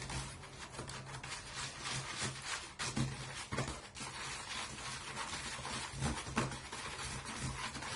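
Baking soda being stirred into water with the plastic handle of a screwdriver: continuous scraping with irregular clicks and knocks against the container, over a low steady hum.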